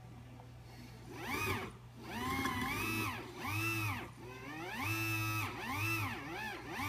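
Liebherr 922 excavator hydraulics whining as the new bucket is worked, the pitch rising and falling in a series of swells as the controls are moved.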